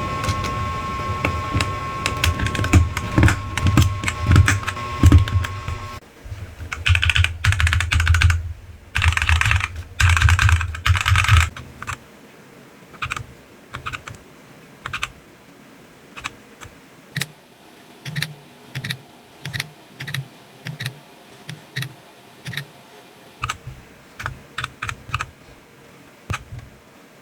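Keys being pressed on a DK22 mechanical numpad. For about the first twelve seconds a louder, busier clatter sits over a low rumble, with a steady tone for the first six seconds; after that come single keystrokes, about one or two a second.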